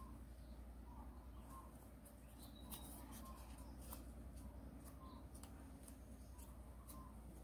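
Near silence: soft clicks and crinkles of origami paper being folded and pinched by hand, with a faint short chirp repeating about once a second.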